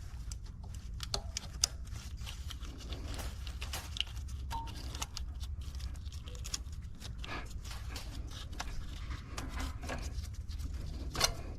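Scattered clicks, taps and light scrapes of hands and tools on the engine as ignition coils are refitted on a Toyota 3.5-litre V6, over a steady low hum, with a sharper click near the end.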